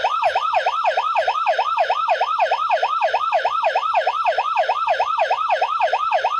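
Infrared motion-sensor security alarm sounding after detecting a person moving in front of it within range: a loud electronic siren whose pitch sweeps rapidly up and down, about four times a second.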